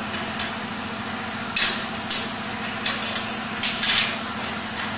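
Compressed air hissing in several short bursts as the hand-lever pneumatic valve of a model three-way tipper trailer is worked, over a steady low hum and a constant hiss.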